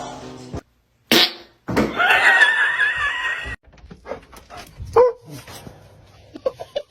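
A dog whining in a high, wavering pitch for about two seconds, starting about two seconds in, after a short click.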